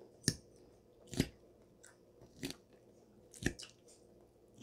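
A person chewing food, with four sharp clicks about a second apart.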